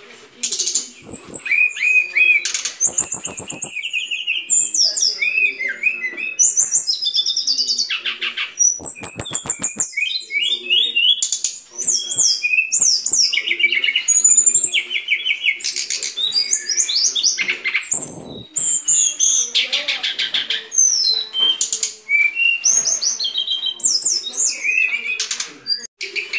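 Brown-chested jungle flycatcher singing a fast, varied song of high chirps and trills, broken several times by rapid rattling runs.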